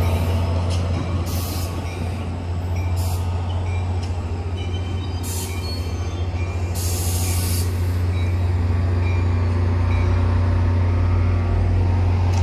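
NJ Transit commuter train's passenger coaches rolling past behind a diesel locomotive, with a steady low hum under the wheel noise. Several short hisses of air from the brakes come in the first half as the train slows into the station.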